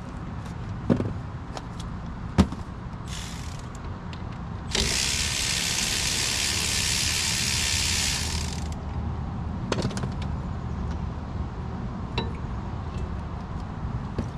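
Brake work at a truck's front wheel: sharp metal clicks and taps as the caliper and its bracket are handled and fitted over the rotor. A steady hiss lasting about four seconds begins about five seconds in and is the loudest sound.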